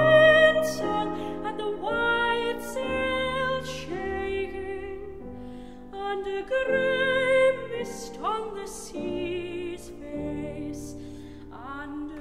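Background music: a slow song with a singer holding long notes with vibrato over an instrumental accompaniment.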